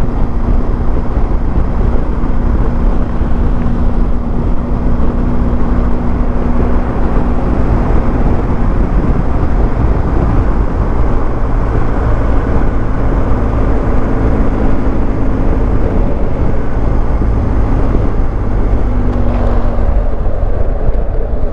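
BMW R1250GS boxer-twin engine running at a steady road speed, heard under loud wind and road noise.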